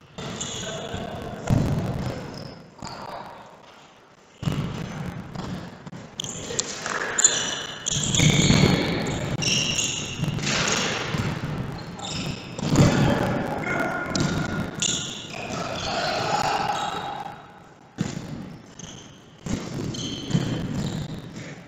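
Futsal ball being kicked and bouncing on an indoor court floor: a string of thuds and knocks.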